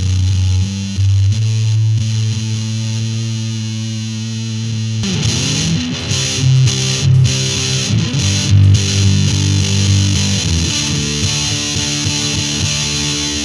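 Electric guitar played through a Musontek FurFur fuzz pedal, thick and distorted: a long sustained chord rings out, then new chords are struck about five seconds in and played on.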